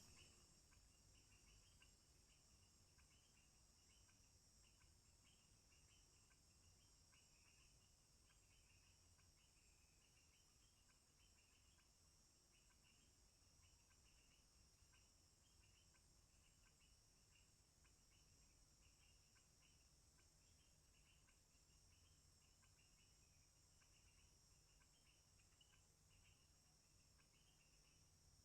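Faint chorus of forest insects: a steady high-pitched trilling drone with a rapid, continuous run of short chirps beneath it.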